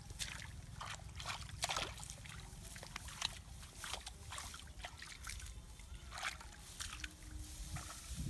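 Hands splashing and sloshing in shallow muddy paddy water in short, irregular splashes while groping for fish.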